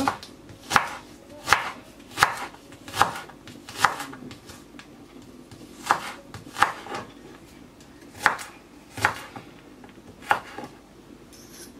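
Chef's knife slicing an onion on a wooden cutting board: about a dozen separate knocks of the blade on the board, unevenly spaced, with a short pause midway.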